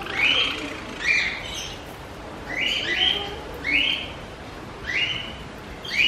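Aviary finches calling: short, high, nasal calls repeated about once a second, sometimes two in quick succession, about seven in all.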